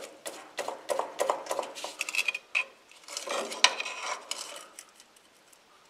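Steel pry bar levering and clinking against the cast-iron exhaust manifold flange of a 1957 Ford 800 tractor, prying at a seized flange to work it loose. It makes a run of irregular metallic clinks and scrapes, with a brief high metallic ring about two seconds in, dying away about five seconds in.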